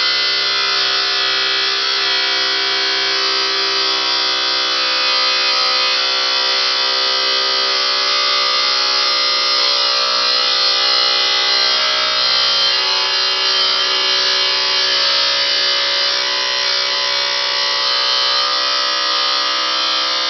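DeWalt angle grinder cutting through a metal boiler flue pipe: a steady high whine from the disc that holds for the whole time.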